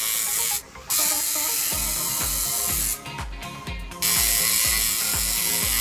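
Electric tattoo machine buzzing as it works on skin, stopping briefly about half a second in and again for about a second near the middle as the needle is lifted off.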